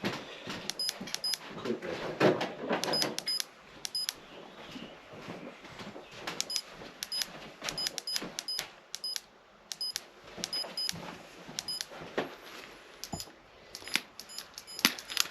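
Irregular small clicks and taps of metal tools and engine parts being handled at a workbench, some with a brief high metallic ring.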